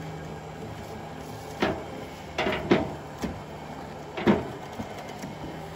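A bull moose carcass being dragged by rope onto a flatbed trailer, knocking against the metal ramp in about five sharp clunks, the loudest a little over four seconds in, over a steady low hum.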